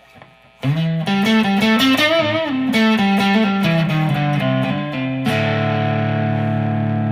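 G&L ASAT Classic Tribute electric guitar on its neck pickup, played through an amp's blues channel at moderate gain: a short lick of single notes with string bends, then a chord struck about five seconds in and left ringing. Faint amp hum before the first note.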